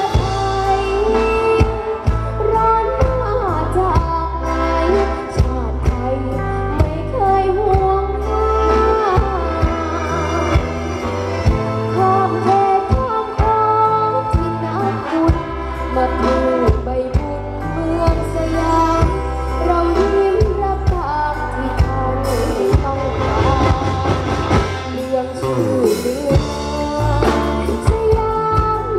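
A luk thung band playing live: a singer's voice wavers over a steady bass line and regular drum beats.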